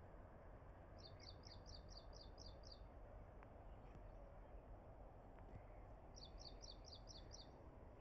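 A small songbird singing twice, each phrase a quick high trill of about five notes a second lasting just under two seconds, over a faint steady outdoor background hiss.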